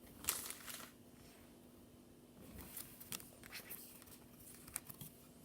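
Pokémon trading cards being handled and sorted: a soft rustle just after the start, then a few scattered light taps and clicks, over a faint steady hum.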